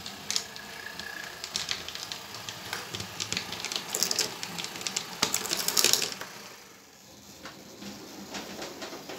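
Motorised model PCC tram running on small-gauge track, its wheels and mechanism clicking and rattling. The clatter is loudest about four to six seconds in as it passes close, then falls away.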